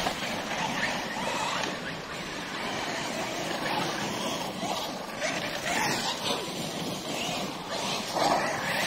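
Electric RC off-road trucks being driven over loose ground, giving a steady rough noise of tyres and motors. A brief falling whine comes just before six seconds in.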